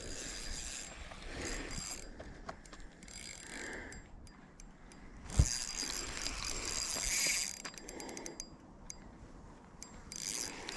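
Fishing reel being cranked, its gears and clicks ticking rapidly in runs, as a small, light striped bass is reeled in. A single thump about five seconds in.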